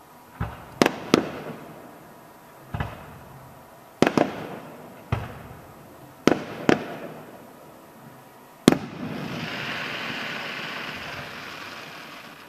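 Fireworks display: aerial shells bursting with sharp, echoing bangs, about ten in eight seconds, some in quick pairs. The last and loudest bang is followed by about three seconds of hissing that fades away.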